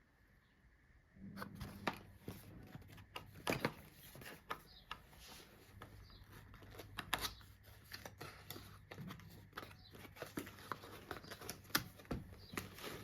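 Packaging and its contents being handled by hand: irregular rustling, crinkling and small clicks and taps, starting about a second in over a low steady hum.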